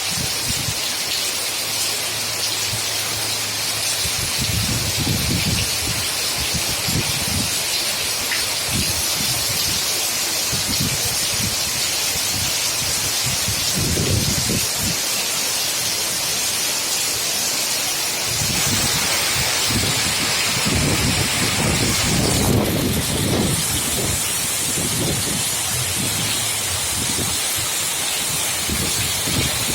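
Heavy rain falling in a steady hiss, with strong wind gusting in irregular low rumbles that come more often from about two-thirds of the way in.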